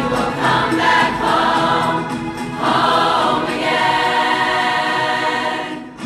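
Large mixed youth choir singing long held notes in several parts; the sound drops away briefly near the end.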